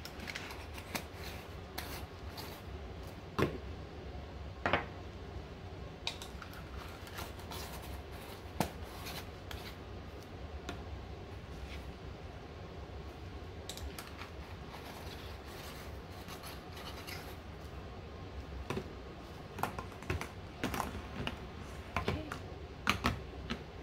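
Aluminium lotion-bar tins being closed: screw-on lids scraping as they are threaded on, and light metal clicks as the tins are set down and stacked, the clicks coming thicker over the last few seconds.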